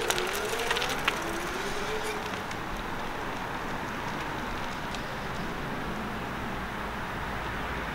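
A 250 W rear-hub-motor electric bike pulling away under throttle start. There are several sharp clicks and a brief wavering whine in the first two seconds, then a steady background hiss as the bike rides off into the distance.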